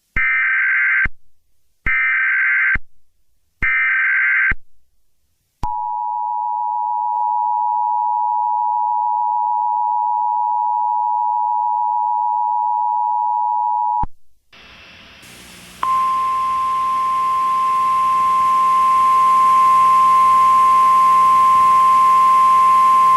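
Emergency Alert System tones: three one-second bursts of the buzzy SAME header data. Then the two-tone EAS attention signal holds steady for about eight seconds. After a short break, a single steady 1050 Hz weather-radio alert tone sounds for about eight seconds over radio hiss and hum.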